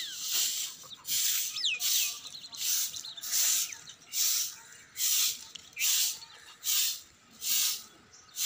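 A stiff stalk broom sweeping grit and leaf debris across a concrete roof, in steady swishing strokes a little under one a second. A few bird chirps sound in the first two seconds.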